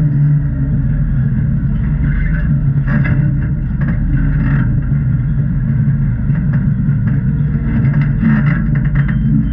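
A Jeep's engine running steadily at low revs during rock crawling, with short brighter bursts of sound now and then.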